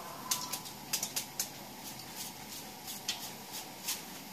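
A kitchen knife chopping a handful of shredded banana blossom: short crisp cuts, unevenly spaced, with a pause in the middle.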